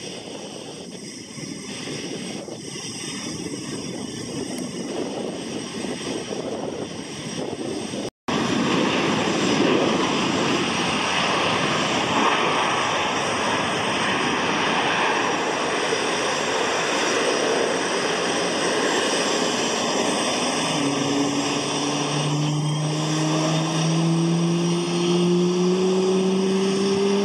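F/A-18 Hornet jet engines running on the flight line: a steady rushing noise that cuts out for a moment about eight seconds in and comes back louder. From about twenty seconds in, a whine climbs steadily in pitch as an engine spools up.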